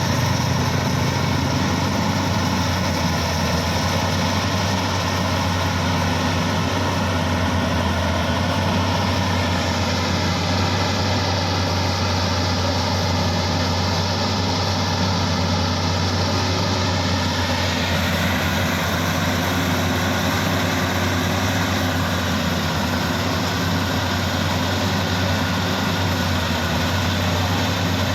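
Rice combine harvester running steadily while harvesting: a constant low engine hum with the whine of the threshing machinery over it. The pitch of the machinery shifts about ten seconds in and again about eighteen seconds in.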